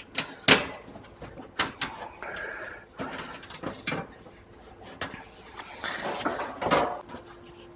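Sheet-metal service panels on outdoor air-conditioner condensing units being handled: a string of knocks, clunks and scrapes, the sharpest about half a second in.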